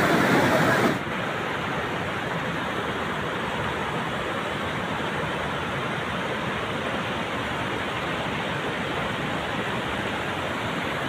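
Steady rushing of muddy flash-flood water running over a bed of stones and boulders. It is a little louder for about the first second, then settles to an even rush.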